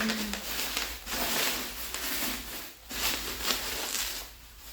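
Crinkling and rustling of packing material being handled in uneven bursts, as a rifle is unwrapped from its packaging.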